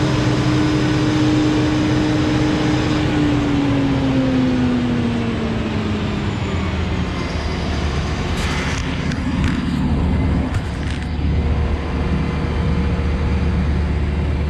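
Krone BigX 680 forage harvester running while chopping maize, a steady heavy drone with a whine that drops in pitch a few seconds in. About two thirds of the way through, several short knocks and rustles of the camera being handled.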